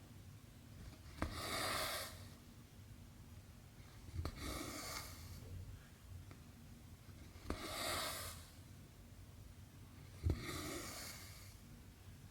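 Cotton thread being drawn through 11-count cross-stitch fabric four times, about every three seconds. Each stitch starts with a sharp tick of the needle going through the cloth, followed by a short hiss as the thread is pulled through.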